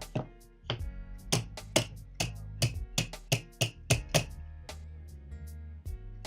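Background music with steady held tones, with a run of sharp, wood-block-like knocks through the first two thirds that stops about four seconds in.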